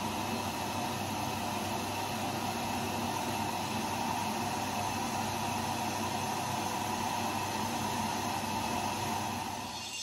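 Front-loading washing machine running early in a 40-degree wash: the drum tumbling wet laundry with a steady mechanical hum and swish. The sound fades out near the end.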